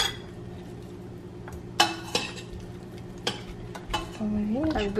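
Several separate clinks of a metal spoon against ceramic bowls and a plate while cabbage rolls are filled and rolled by hand, over a faint steady hum.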